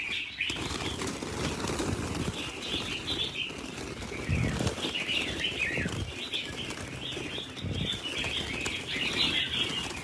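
Red-whiskered bulbuls fluttering their wings in a crowded cage as a hand reaches in among them to catch one. Many short chirps run through the wingbeats, and the fluttering comes in stronger flurries about halfway through.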